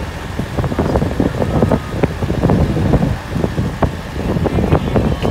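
Moving vehicle's engine and road noise with wind buffeting the microphone: a dense low rumble with irregular crackles.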